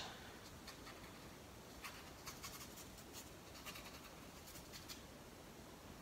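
Paintbrush stroking acrylic paint onto a stretched canvas: a run of faint, short strokes from about two seconds in until about five seconds in.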